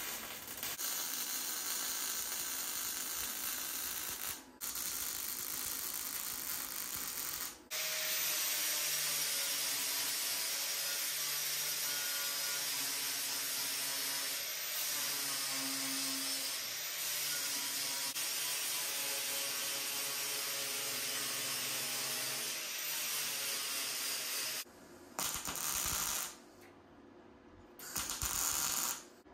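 MIG welder crackling as it lays a weld on steel, broken once by a short pause; about eight seconds in, an angle grinder takes over, grinding steel with a steady whine that shifts in pitch as it bears on the metal. Near the end, a few short bursts of MIG tack welding.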